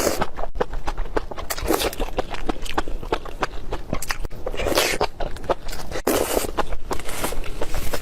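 Close-miked eating sounds: rapid wet chewing clicks throughout, with four short, louder noisy bursts from biting or sucking in food.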